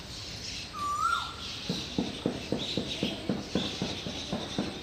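Animal calls: a single short whistle-like call about a second in, then a quick run of short, evenly spaced notes, about three a second.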